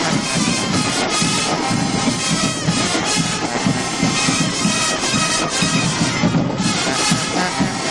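Band music led by wind instruments playing continuously and loudly, with a pulsing low part underneath.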